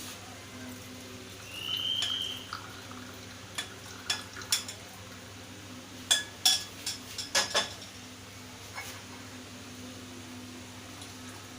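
Metal kitchen utensils clinking against a pot and cup as the kadha is handled. There is a brief high squeal of metal scraping about two seconds in, then a run of sharp clinks, loudest around six seconds, over a steady low hum.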